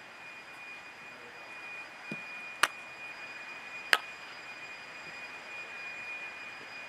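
Two sharp knocks about a second and a half apart, the second a bat striking a softball in a fielding drill, over a steady outdoor background with a faint steady high whine.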